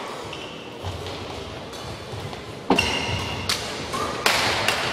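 Badminton rackets striking the shuttlecock in a rally: three sharp hits in the second half, less than a second apart, the first the loudest, with a brief high squeak between the first two.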